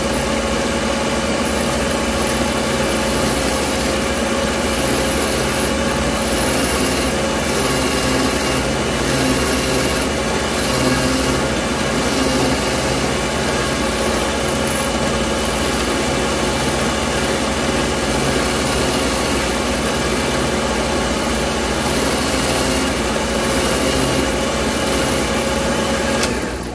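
Taurus 3 diamond-plated ring saw running steadily with a constant whine, its blade grinding through a thick dichroic glass pendant fed by hand. The sound cuts off right at the end.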